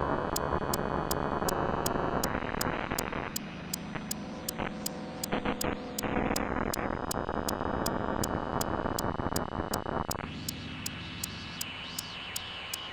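Improvised synthesizer noise music. Harsh washes of noise cut out and return in sudden blocks over a steady high ticking pulse, about three ticks a second.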